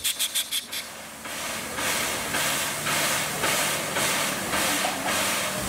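Steam hissing from NSW 36 class steam locomotive 3642, pulsing roughly twice a second over a faint low hum. A brief rapid ticking opens the sound.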